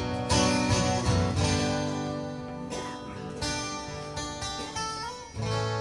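Acoustic guitars strumming chords, a fresh strum about every one to two seconds with the chord ringing on between strokes.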